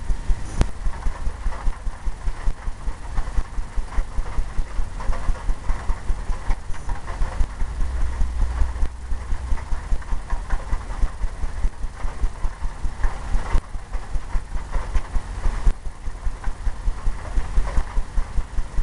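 Brush working oil paint into a stretched canvas in quick repeated strokes, about three to four a second, each stroke a soft scrub with a low thump of the canvas.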